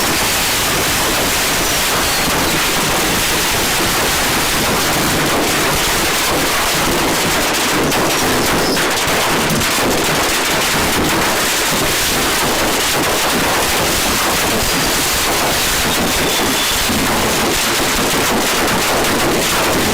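Fireworks going off nonstop inside a room: a dense, continuous crackle of many small bangs that holds at a steady loud level throughout.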